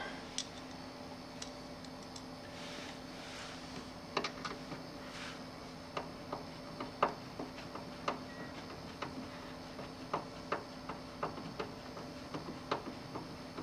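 Light, irregular clicks and ticks, one or two a second from about six seconds in, after a few soft rustles, over a faint steady hum: a tool and small parts being handled while a television's chassis tray is put back in.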